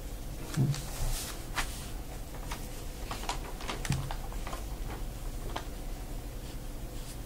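Ink brush and hands working on calligraphy paper: scattered light scratching, rustling and small taps, with two duller thumps, one just after the start and one about four seconds in.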